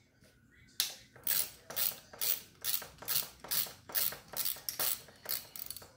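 Socket ratchet wrench clicking in quick back-and-forth strokes, about two a second, as a bolt on the motorcycle's clutch cable bracket is loosened.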